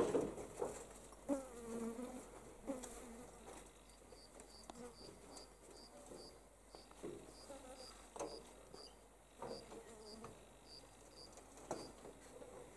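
Flies buzzing close to the microphone in short passes, their drone rising and falling in pitch as they come and go. Through the middle there is also a faint high chirp repeating about three times a second.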